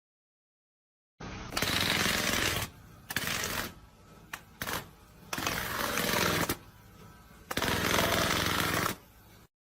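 A loud power tool running in four bursts of about a second each, with short pauses between.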